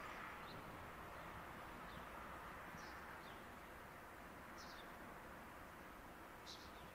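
A handful of short, high, falling bird chirps, the clearest one near the end, over faint steady outdoor background noise.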